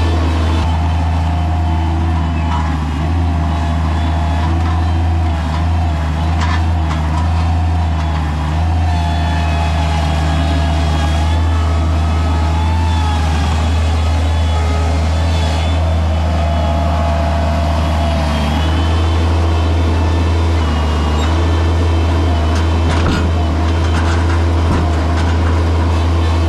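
Bobcat MT100 mini skid steer running steadily at working speed, with a higher whine that rises and falls as the hydraulics work the grapple loading logs, and a few light knocks.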